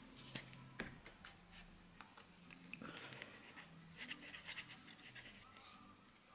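Faint rustling and light taps of paper and card cutouts being handled and positioned on a tabletop, with a few small clicks about a second in and a longer soft rustle in the middle.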